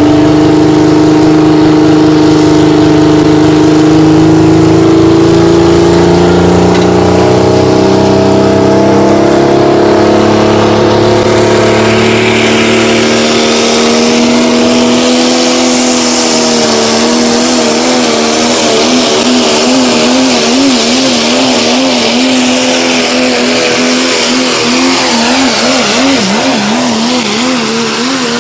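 Pickup truck engine at full throttle pulling a weight sled. Its pitch climbs slowly through the first half, then holds high and wavers rapidly up and down as the truck bounces along the track. A loud rushing hiss joins about halfway through.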